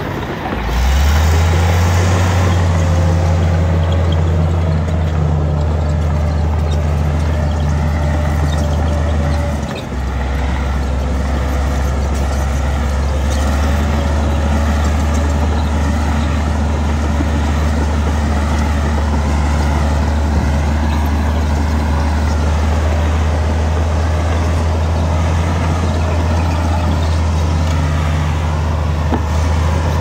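Heavy diesel engine of earthmoving machinery running, a steady low drone. It dips and picks up again about a second in, and settles to a lower pitch about ten seconds in.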